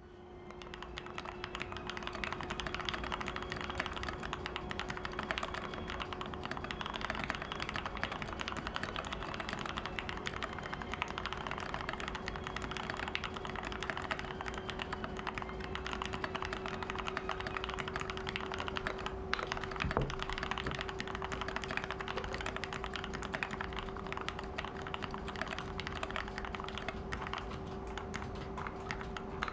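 Continuous typing on an NK65 aluminium-case mechanical keyboard with lubed Gateron Ink Black linear switches and XDA dye-sub keycaps, a dense run of key clacks. A steady faint hum runs underneath.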